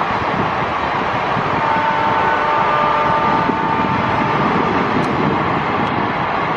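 Freight train behind a WAG-12B electric locomotive running past: a steady, dense rumble of wagon wheels on the rails. A faint ringing tone sounds over it for about two seconds in the middle.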